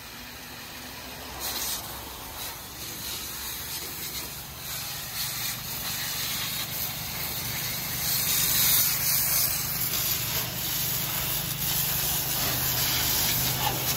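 High-pressure water jet from a hose nozzle hissing and spattering over a tractor's engine and frame during a wash. It grows louder partway through, and a low steady hum joins it about ten seconds in.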